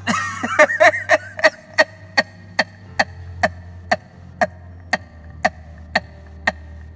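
Background music: a steady ticking pulse of pitched strikes, about two and a half a second, over a low sustained drone that changes chord a couple of times.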